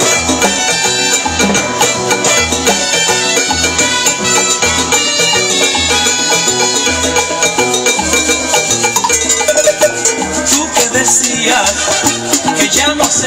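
Live salsa band playing an instrumental passage: timbales and percussion over a repeating bass line and sustained instrument lines, with a steady beat.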